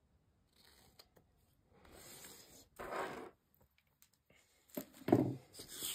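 Small scissors snipping triangles out of cardstock, with the card rustling and scraping as it is handled; two short quiet scraping snips, the louder about three seconds in.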